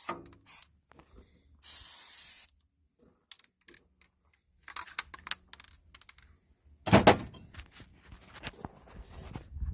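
Aerosol can of spray adhesive spraying in short hissing bursts, a brief one at the start and a longer one about two seconds in, coating the inside of a tool box drawer. Then scattered knocks and rattles of handling, loudest about seven seconds in.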